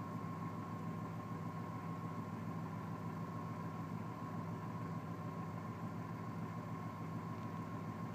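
1994 Chevy S10 ZR2's 4.3-litre throttle-body-injected V6 idling steadily, an even low hum with a steady high tone running over it.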